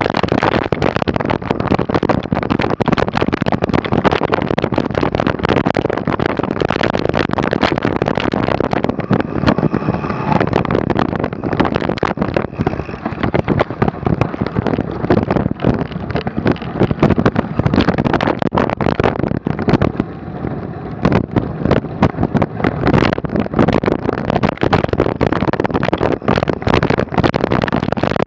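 Mountain bike being ridden over rough snowy trail, picked up by a camera mounted on the bike or rider: a continuous clatter of rapid knocks and rattles with rushing noise.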